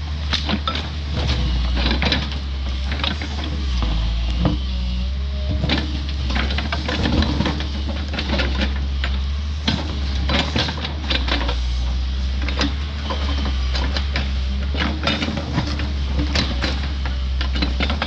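New Holland excavator's diesel engine running steadily while its hydraulic breaker hammer clanks and knocks against the ground and roots, the sharp hits coming irregularly, several a second.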